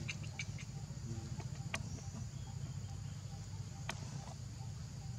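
A few short, sharp high-pitched animal chirps, one cluster right at the start and single ones near the middle, over a steady low hum.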